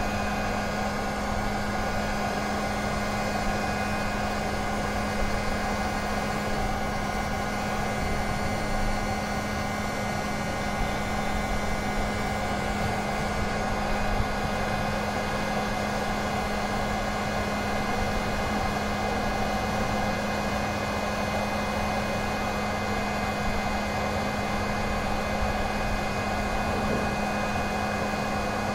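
Electric heat gun running steadily, its fan blowing hot air, with an even low hum and a faint high whine.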